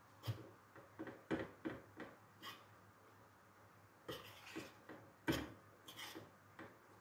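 Metal spoon stirring in a stainless steel saucepan of chocolate, milk and powdered sugar: a scatter of light clinks and scrapes against the pan, with a pause in the middle.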